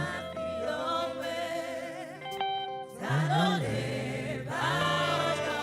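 Gospel worship music: voices singing a Yoruba praise chorus with musical accompaniment.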